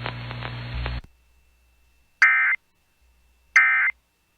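NOAA Weather Radio's Emergency Alert System end-of-message signal: two short bursts of digital data tone, each about a third of a second, about a second apart, marking the close of the warning. Before them the broadcast's hiss and hum run for about a second and then cut off.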